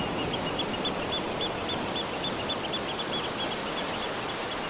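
Steady hissing rush with a rapid series of short, high chirps, about five a second, that grow fainter after about three seconds.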